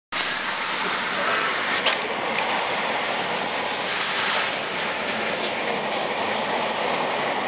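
Steady rushing noise of storm wind and heavy seas against a cargo ship, heard from inside the wheelhouse, with a brief louder hiss about four seconds in and a couple of small clicks near two seconds.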